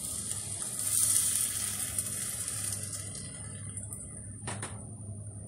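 Risotto rice sizzling in a hot pot as liquid is added. The hiss is loudest about a second in and dies down after about three seconds. A single knock comes near the end.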